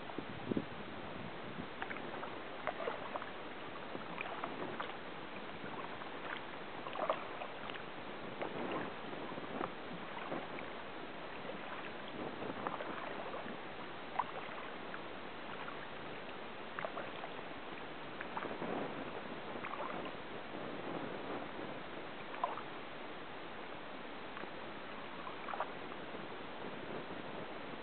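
Kayak paddling on calm water: the paddle blades dip and splash at irregular intervals, with drips and small knocks over a steady hiss.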